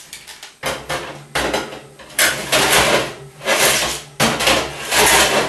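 Metal baking tray being slid into an oven, scraping and rattling against the oven's rack and rails in about six rough bursts, each starting sharply and lasting up to a second.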